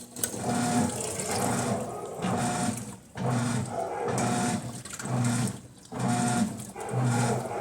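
Electrolux LT11F top-loading washing machine agitating a full tub: the motor hums in short strokes of about a second each, with brief pauses between, and water sloshing.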